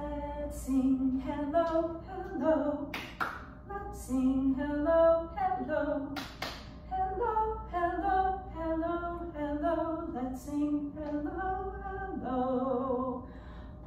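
A woman singing unaccompanied, a melody of held notes stepping up and down.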